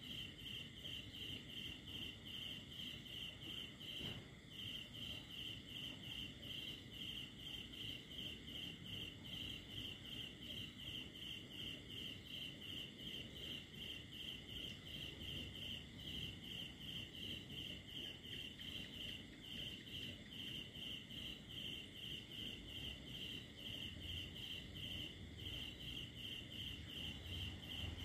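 Cricket chirping steadily, a high chirp repeated evenly about three times a second, with a brief break about four seconds in.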